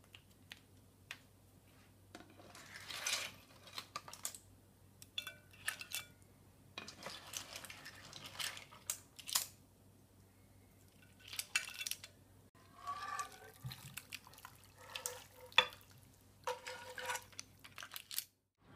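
Clams in their shells clinking and a spatula scraping a frying pan, in short irregular bursts, as clams, tomatoes and broth are spooned out onto fish in a ceramic baking dish, with small wet splashes.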